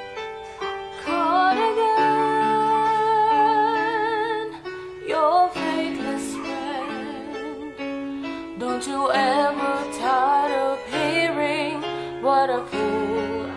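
Women's voices singing a verse in unison with vibrato, over a soft instrumental accompaniment.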